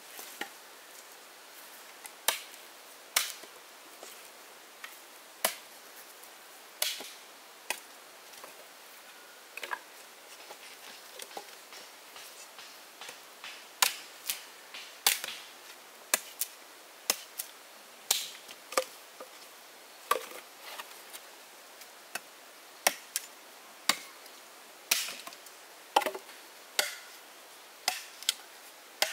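Repeated sharp knocks of a tool striking wood, irregularly spaced: a few scattered strikes at first, then from about halfway on a steadier run of one to two a second.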